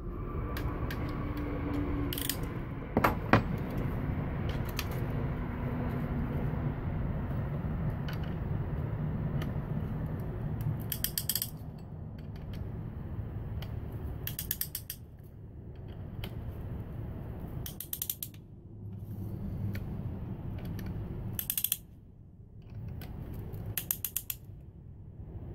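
Piston ring compressor's ratchet being tightened with its key around a piston: the pawl clicks in short rapid runs, five of them in the second half, with a sharp knock about three seconds in. A steady low hum runs underneath.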